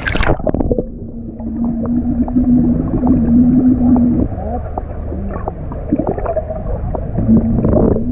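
A splash as the camera goes under the water, then muffled underwater sound of a swimmer blowing bubbles out through her mouth and nose, with scattered gurgles and clicks. A steady low hum runs under it, dropping out for a few seconds in the middle.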